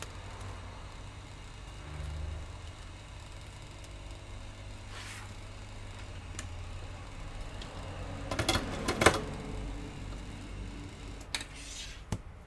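Handling noises of a laptop LCD panel on a metal workbench: a cluster of sharp clicks and knocks about two-thirds of the way in and two more short clicks near the end, over a steady low hum.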